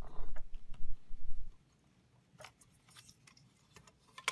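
Hands unplugging a laptop cooling fan's wire connector and lifting the fan out of the plastic chassis: low handling bumps and rubbing for about the first second and a half, then faint small plastic clicks and scrapes, with a sharp click near the end.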